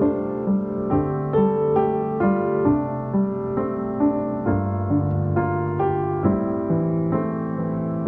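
Background instrumental music: a steady pulse of pitched notes, about two a second, over held low notes.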